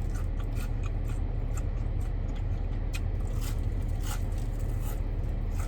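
Close-up chewing and crunching of food, a run of short crisp crackles and smacks, over a steady low hum inside a car.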